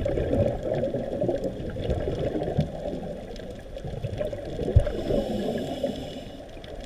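Scuba regulator exhaust bubbles gurgling underwater, muffled through the camera housing, swelling and easing twice like exhaled breaths. A single low thump stands out near five seconds in.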